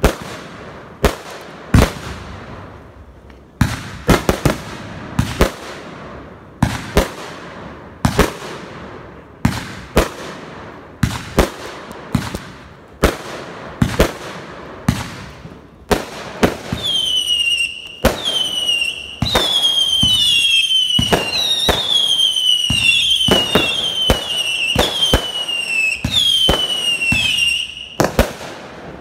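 Aerial fireworks firing and bursting: a continuous run of sharp bangs, one or two a second. From a little past halfway until shortly before the end, overlapping whistles join the bangs, each falling in pitch.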